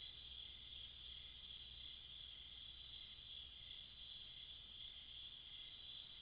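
Faint, steady chorus of crickets: a continuous high trill, with a softer pulsing call a little lower in pitch.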